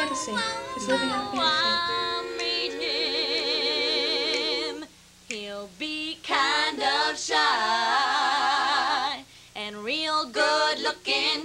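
Four women singing a cappella in close harmony, doo-wop style, holding long chords with vibrato. The singing breaks off briefly about five seconds in and again a little after nine seconds.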